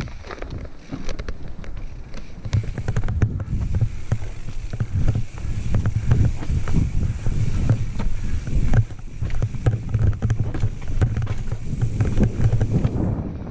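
Mountain bike riding fast down rocky forest singletrack: tyres rumbling over dirt and stones, with frequent rattles and knocks from the bike and wind buffeting the microphone.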